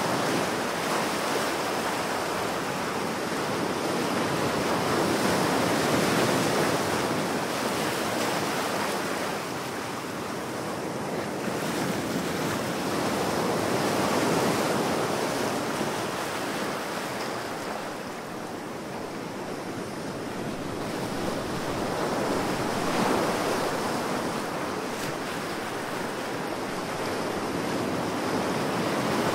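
Ocean waves breaking and washing in, a continuous rush of surf that swells and eases every six to nine seconds.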